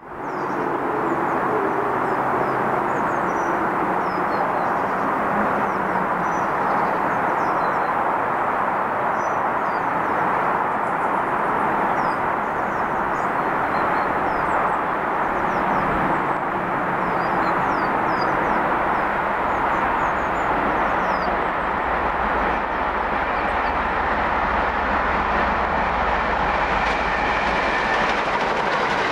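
A steam-hauled train, a rebuilt Bulleid Pacific locomotive, running at speed on the main line: a steady rush of noise, with a deeper rumble building from about halfway through as it draws near.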